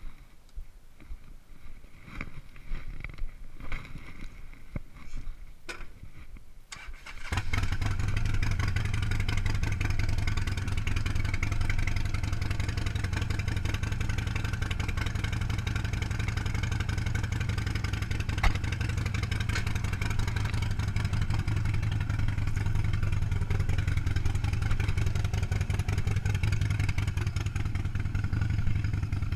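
A few faint clicks and knocks, then a Harley-Davidson Sportster 1200's V-twin engine starts abruptly about seven seconds in and runs at a steady idle.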